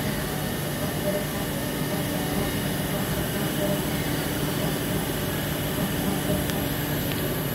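Weiler DZ 42 CNC lathe running: a steady machine hum with a faint whine that rises and falls a couple of times.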